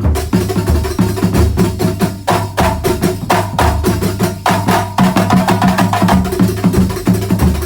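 A terbang frame-drum ensemble playing a fast, dense interlocking rhythm in Banyuwangi kuntulan style, with deep bass drum strokes underneath.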